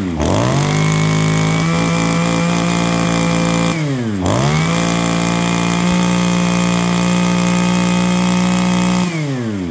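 Komatsu Zenoah 23 cc two-stroke brush cutter engine revved up with the throttle trigger and held at high speed for about three and a half seconds, dropping toward idle around four seconds in. It is then revved up again and held steady until near the end, when it falls back to idle.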